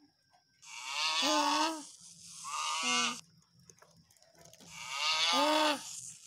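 Cow mooing: three calls of about a second each, one after another.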